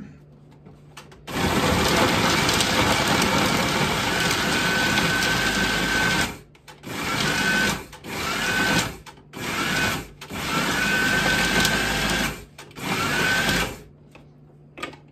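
Small electric food processor chopping ham. Its motor whirs for about five seconds, then runs in five shorter pulses and stops near the end.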